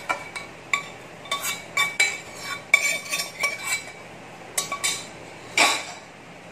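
Metal spoon scraping and clinking against a stainless-steel sauté pan as vegetables are scooped out, the strokes leaving short ringing tones. One louder knock comes near the end.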